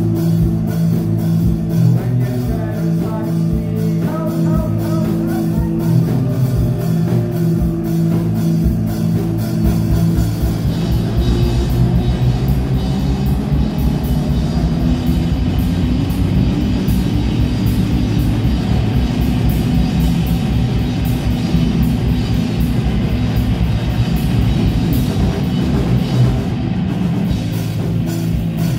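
Rock band playing live: electric guitar, bass guitar and drum kit. About ten seconds in, the playing grows fuller and busier, with many more sharp drum strikes.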